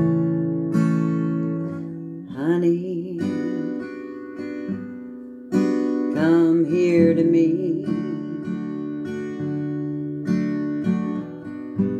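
Acoustic guitar playing slow chords, with a woman singing over it twice: a short phrase about two seconds in and a longer one from about five and a half seconds in.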